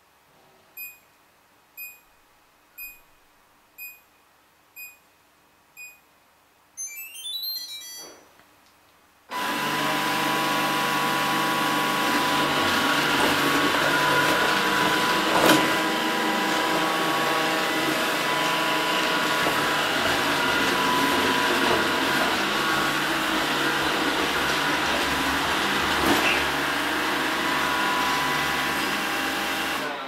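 Samsung Navibot SR855 robot vacuum: six short beeps about a second apart, then a rising start-up chime. About nine seconds in, its suction motor and brushes start and run steadily with a whine, with two brief knocks partway through.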